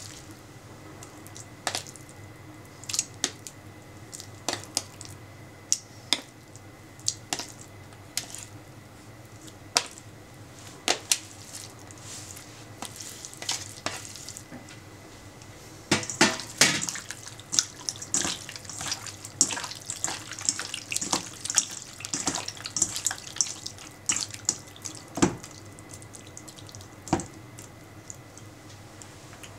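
Pieces of raw chicken dropped one at a time into liquid marinade in a stainless steel bowl, each landing with a wet splat, about one a second. About halfway through, a quicker run of wet squelching and splashing as the chicken is mixed into the marinade by hand, thinning out near the end.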